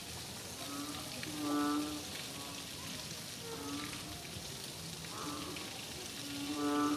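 Steady rain hiss, with a short held tone sounding over it several times, each lasting under a second; the loudest come about a second and a half in and near the end.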